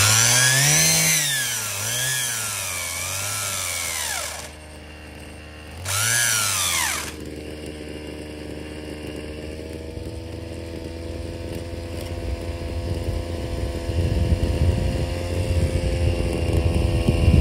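Gas (butane-canister) brush cutter's small engine, its nylon-line trimmer head fitted with four strands, revving up and down in several throttle blips, easing off, revving once more, then settling into a steady idle. A rough low rumble grows louder near the end.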